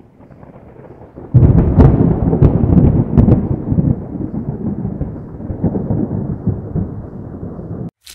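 Thunder: a low rumble that breaks suddenly about a second and a half in with a few sharp cracks, then rolls on and slowly fades before cutting off abruptly near the end.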